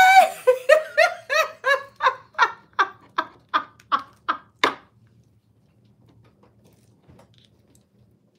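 A woman laughing hard: a long run of about a dozen rhythmic "ha" pulses, slowing and ending about five seconds in.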